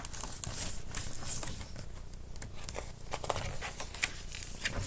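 Light rustles, taps and clicks of a picture book being handled, a scattering of short handling noises over a faint room hum.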